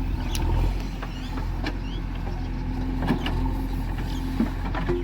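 Heavy diesel machine engine running steadily with a low rumble, with a few sharp knocks or clanks from the machine spread through it.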